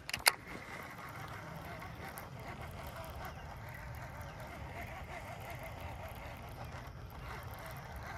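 A sharp click, then a baitcasting reel being cranked, giving a steady whirring with a hum.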